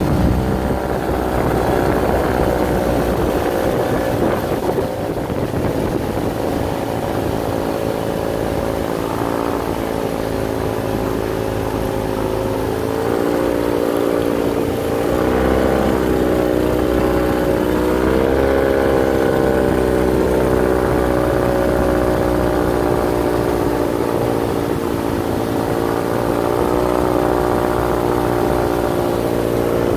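Motorboat engine running steadily, its pitch shifting up and down several times around the middle.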